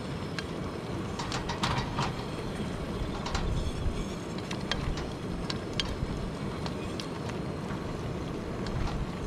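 A black cooking utensil scraping and clicking against a stainless steel pot as vermicelli noodles are stirred into a curry, with irregular light clinks, over a steady low rumble.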